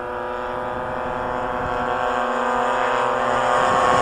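Several quarter-scale RC warbird models' small two-stroke gasoline engines (26cc, and one 38cc) droning together in a formation fly-by, the overlapping engine notes growing steadily louder.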